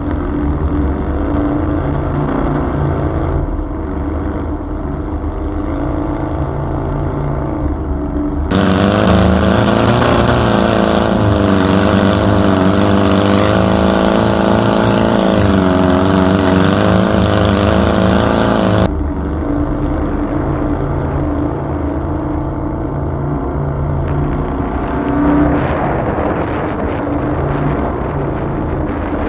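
Air-cooled Volkswagen flat-four engine running under load through snow, its pitch rising and falling with the throttle. For about ten seconds in the middle, a louder rushing noise joins it, starting and stopping abruptly.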